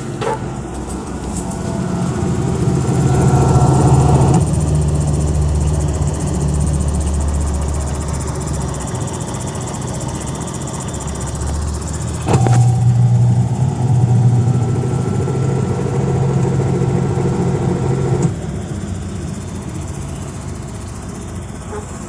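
Sharp top-load automatic washing machine running its spin-dry cycle, a steady motor hum. About twelve seconds in a sharp click sets off a louder, steadier hum that cuts off suddenly some six seconds later. The machine is spin-drying again after a drain fault that had stopped it spinning.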